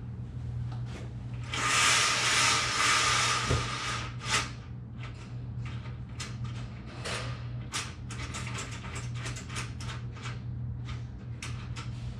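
Vertical blind headrail being fitted at the window. There is a loud scraping rush for about two seconds, then a knock, then a long run of small sharp clicks from the blind's parts.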